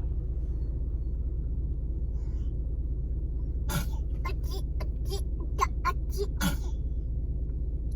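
A person's voice making a quick run of short throat sounds, about nine in three seconds, starting about halfway through, over a steady low rumble.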